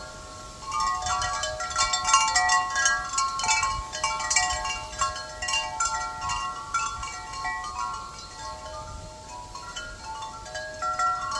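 Chimes ringing, many clear notes struck at irregular moments and overlapping one another.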